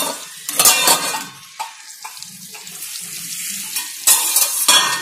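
A stainless-steel pot lid clatters and rings as it is lifted off the kadai. Stuffed whole eggplants then sizzle quietly in the oil, and there is another metal clatter about four seconds in.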